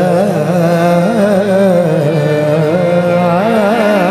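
A man singing long, wavering, ornamented sung notes to harmonium accompaniment.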